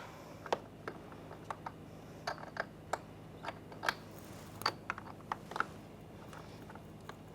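Scattered light plastic clicks and taps, about a dozen irregularly spaced, from handling the door panel's wiring connector as it is plugged in; quieter toward the end.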